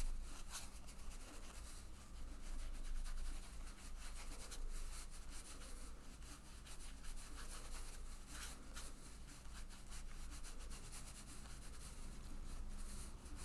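Watercolour brush stroking and dabbing wet paint on cold-pressed cotton watercolour paper: faint, soft scratchy rubbing, with a few slightly louder strokes.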